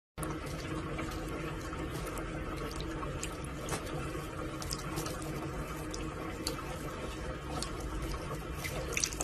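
Steady running water, with a few faint clicks scattered through it.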